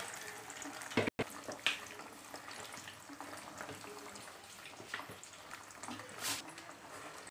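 Potato wedges deep-frying in hot oil in a kadai: a steady bubbling sizzle with scattered crackles, briefly cut off about a second in. This is the first, half-cooking fry before the wedges are taken out and fried a second time.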